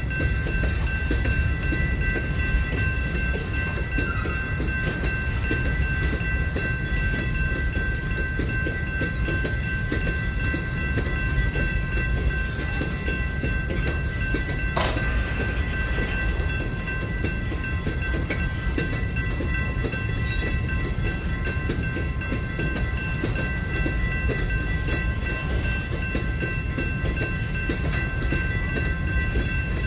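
Train running by on the rails: a steady low rumble with steady high-pitched ringing tones throughout, and one sharp click about halfway through.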